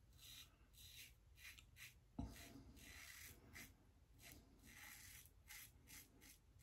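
Faint short scrapes of a Shave It Shadow safety razor cutting through lathered stubble, about two strokes a second, with a soft bump about two seconds in.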